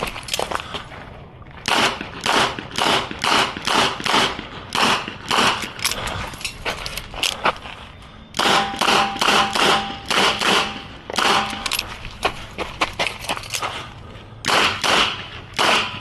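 Smith & Wesson 929 9mm revolver fired rapidly, three quick strings of shots with short pauses between them.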